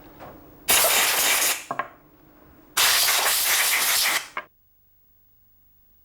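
Two loud bursts of pressurised spray hissing, each lasting about a second and a half, with short clicks as each one stops. Faint background music plays underneath.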